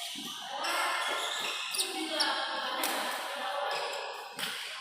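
Badminton rally: several sharp racket strikes on the shuttlecock at uneven gaps, with short squeaks of court shoes and voices in the hall.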